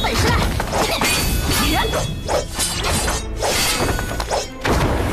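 Animated battle sound effects: a dense run of impacts, crashes and whooshes over an orchestral-style score, broken by two brief drops in level near the end.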